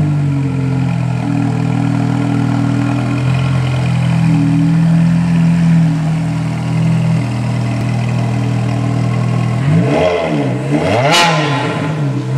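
Ferrari F430's 4.3-litre V8 with a custom Nouvalari Engineering exhaust, idling steadily, then revved in two quick throttle blips near the end, with a sharp crack at the peak of the second.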